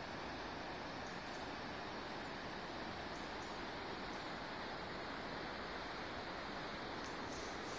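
Steady woodland ambience: an even, continuous rushing noise with no clear footsteps or other distinct events.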